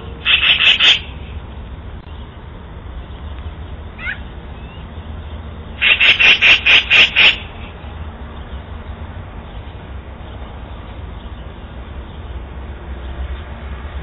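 Black-billed magpie chattering: a short burst of rapid calls at the start, a faint single call about four seconds in, and a longer burst of about seven quick notes around the middle. A steady low rumble sits underneath.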